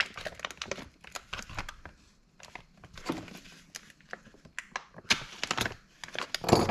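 Crinkling rustle and scattered light clicks from connecting rods and their packaging being handled on a bench, with a louder knock near the end.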